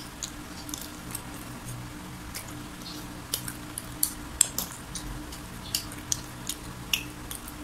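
Close-miked chewing of fried chicken: irregular short mouth clicks and crunches, coming more often in the second half, over a steady low hum.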